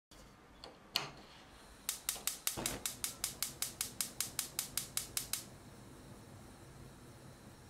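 Gas stove's electric spark igniter clicking rapidly, about five sharp clicks a second for three and a half seconds, as the burner lights, with one single click about a second in. After the clicking stops, the lit burner hisses faintly and steadily.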